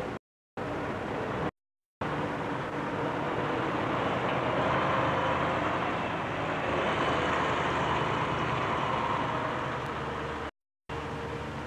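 Machinery running at a dairy factory's milk-tanker bay: a steady engine-like hum under a rushing hiss that swells through the middle and eases off. The audio cuts out briefly three times.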